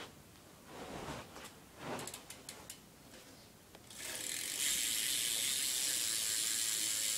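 A few light handling knocks, then about four seconds in the stock rear hub of a 2012 Fit Eddie 1 BMX starts a fast, steady ratcheting buzz of its pawls as the wheel freewheels. The buzz is not that loud.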